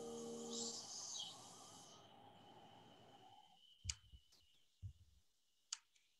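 Held musical notes die away within the first second, leaving a fading hum and then near silence broken by a few short, faint clicks.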